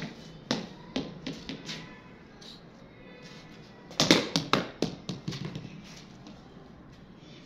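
A cricket bat blocking a ball twice, about four seconds apart: each sharp knock is followed by a few quicker, smaller taps as the ball bounces and rolls on the concrete floor.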